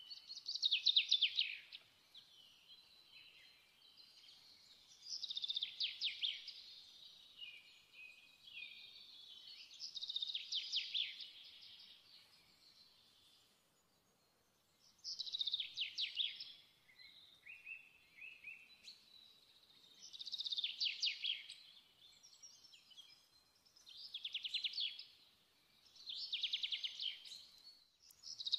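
A songbird singing short phrases of rapid high trills, about eight of them, a few seconds apart.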